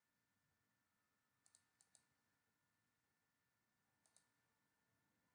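Faint computer mouse clicks against near silence: three quick clicks about a second and a half in, then a pair about four seconds in, as lines are drawn with the mouse.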